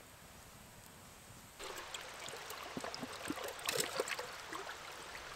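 A shallow trickling stream, with water splashing and gurgling around a metal water bottle held in it to fill, starting suddenly about a second and a half in after a faint steady hiss.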